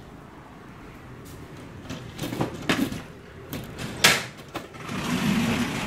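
Slats of a window blind clicking and clattering as they are pushed aside by hand, with one sharp knock about four seconds in. Under it runs the low steady noise of hurricane rain and wind outside, rising to a louder hissing rush near the end.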